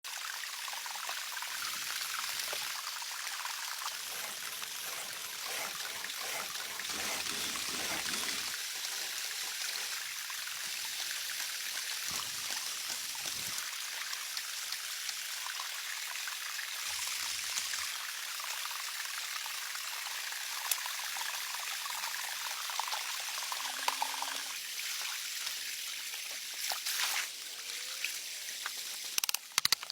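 Water trickling and running steadily, a continuous hiss like a small stream or spout. A few sharp clicks come near the end.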